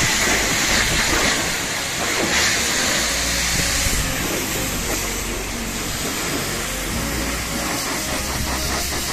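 High-pressure water jet from a pressure-washer lance hissing steadily as it sprays the metal grille and bumper of a truck, with a low pump hum underneath.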